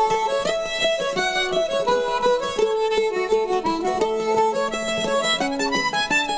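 Instrumental background music, a quick succession of pitched notes.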